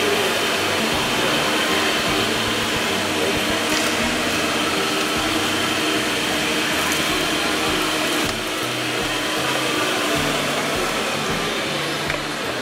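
Steady rushing background noise, like a fan or blower running, with music playing underneath.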